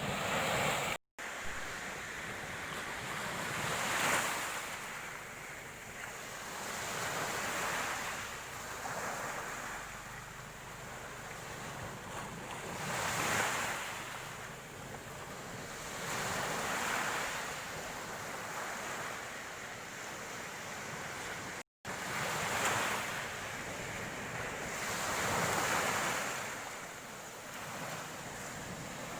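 Sea waves breaking and washing up a beach, each surge swelling and fading every three to four seconds. The sound cuts out completely for a split second twice.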